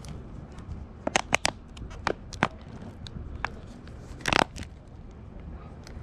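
Car tyre crushing crunchy objects: a series of sharp cracks and snaps over a low rumble, several in quick succession about a second in, more around two seconds, and a dense loud cluster a little past four seconds.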